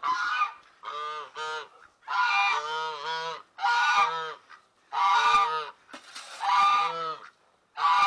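Domestic geese honking over and over, a call about every second with short gaps between.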